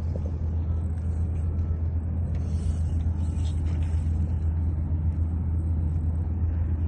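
A steady low rumble that does not change, with nothing else standing out.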